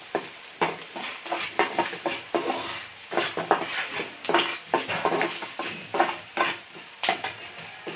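Chopped onions sizzling in hot oil in a steel pan while a ladle stirs them, scraping against the pan about twice a second.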